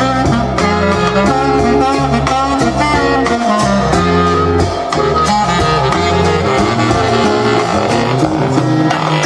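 Recorded music led by guitar, with a bass line under it.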